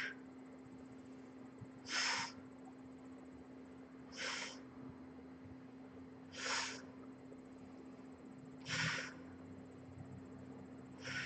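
A woman's short, forceful breaths out, one about every two seconds, each matching one lift of a single-leg glute bridge.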